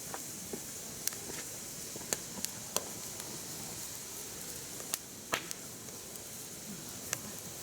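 Firewood burning on a mesh fire stand, crackling: irregular sharp pops over a steady hiss, the loudest pop about five seconds in.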